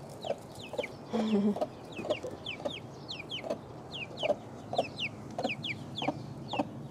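Young chicks peeping, a steady stream of short, high, falling peeps, with a hen's low clucks mixed in.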